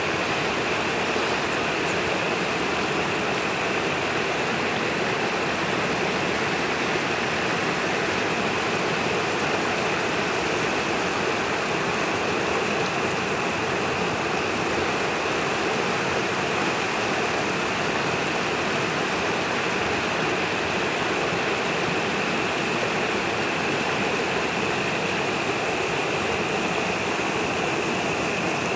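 Yarra River rapids rushing over rocks: a steady, even roar of white water that does not change.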